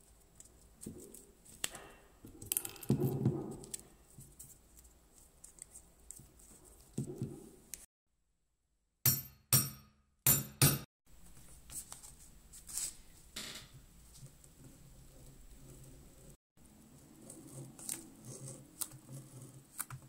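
Rustling and light taps from handling small leather pieces. About nine seconds in come four sharp metal strikes on a setting tool, setting an iron button into a leather circle, followed by a few lighter clicks.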